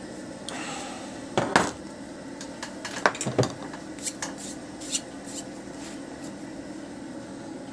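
A handful of short metallic clinks and scrapes from a shoemaker's steel knife being handled, the loudest about a second and a half in and again around three seconds in.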